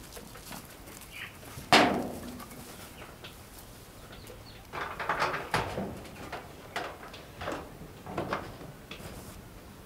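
Corrugated sheet-metal shed door knocking and rattling as it is handled and pulled shut. There is one loud clank a little under two seconds in, then a run of clatters through the middle.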